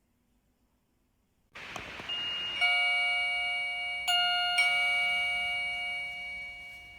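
VOXON wireless doorbell receiver playing an electronic chime melody: a few bell-like notes, struck one after another, that ring on and fade. It starts suddenly about a second and a half in, after near silence.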